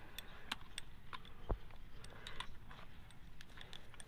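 Scattered light metallic clicks and ticks from a gear puller clamped on a car air-conditioning compressor's clutch pulley as it is handled and set up for pulling, with one low thump about one and a half seconds in.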